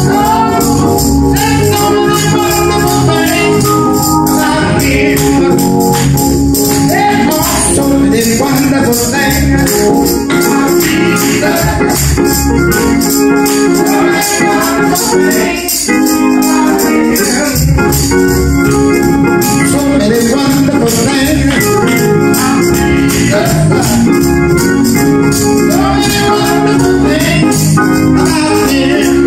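Gospel music: an electric church organ playing sustained chords while a man sings over it, with a tambourine shaken in a steady beat.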